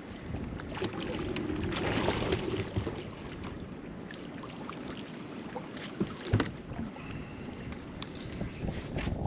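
Lake water lapping against a bass boat's hull, with wind on the microphone and a few sharp knocks, the clearest about six seconds in.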